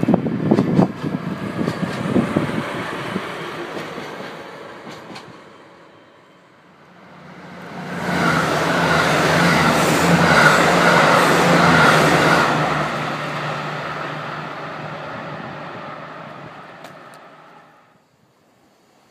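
A DE10 diesel-hydraulic locomotive passes close by, its wheels clicking over rail joints, and fades away over the first few seconds. Then a KiHa 85 series diesel express train comes up and passes at speed, engine hum and wheel noise loudest around the middle, fading out near the end.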